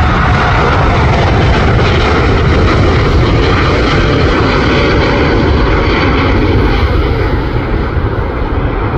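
Jet engines of a Saudia Boeing 787-9 at high power as it climbs out after take-off: a loud, steady roar with heavy low rumble, easing slightly near the end as the aircraft draws away.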